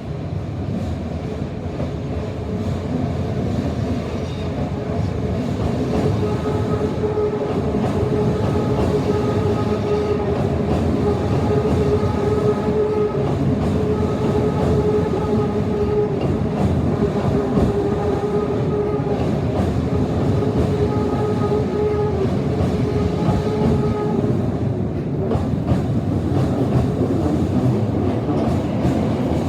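Commuter train rolling slowly past a level crossing on a tight curve, with wheels clattering over the rails. A steady tone sounds over most of the pass, rising in loudness over the first few seconds.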